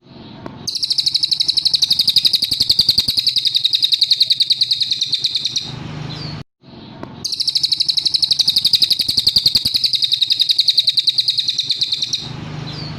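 Cililin songbird singing two long, fast, high trills of rapidly repeated notes, each lasting about five seconds, with a brief pause between them.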